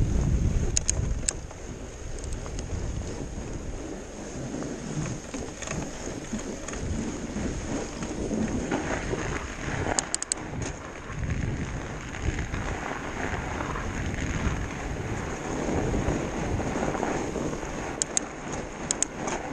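Fat bike tyres rolling over snow, a steady hiss of tyre noise, with wind buffeting the microphone heavily at the start. A few sharp clicks of the bike rattling come about a second in, near the middle and near the end.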